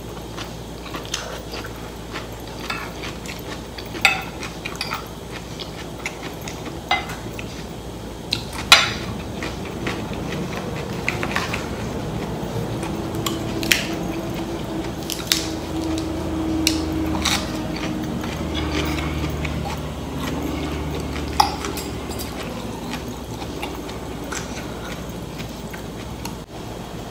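Close-up eating sounds: slurping and chewing rice vermicelli noodles and lettuce leaves, with a fork and spoon clicking against a china plate every second or two. Through the middle a low hum swells and fades.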